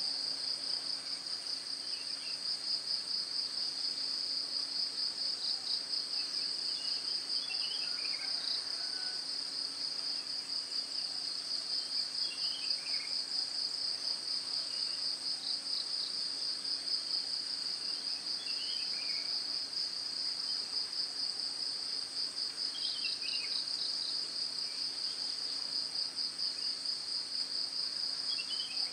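Dense, steady insect chorus with a fast pulsing trill, joined every five or six seconds by a short falling run of chirps.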